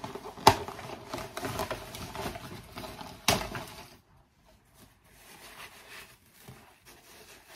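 Rustling and clicking from a synthetic wig and its packaging being handled and lifted out, with two sharp knocks, about half a second in and about three seconds in. After about four seconds it drops to faint handling noise.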